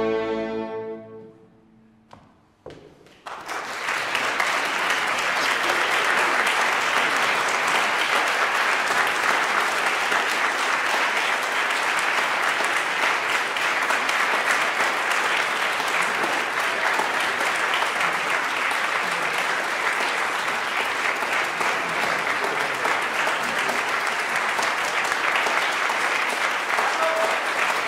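The closing chord of a concerto for guitar and small orchestra dies away within the first second and a half. After a brief silence, the audience starts applauding about three seconds in, and the applause stays steady.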